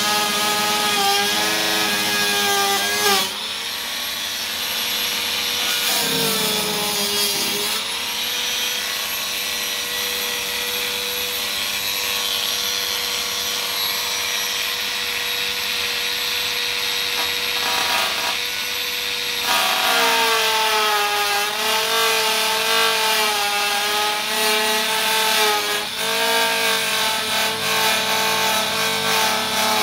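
Dremel rotary tool with a cut-off wheel whining at high speed as it cuts the acrylic aircraft canopy, its pitch wavering as the wheel bites. About six seconds in it slows sharply and speeds up again. From about 8 to 19 seconds it holds a steadier pitch, then wavers again under load.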